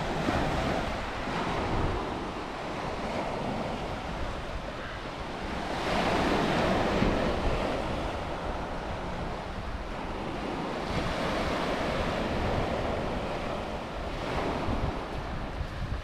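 Small waves breaking and washing up a shingle beach, with wind buffeting the microphone. The surf swells louder about six seconds in and again a little past ten seconds.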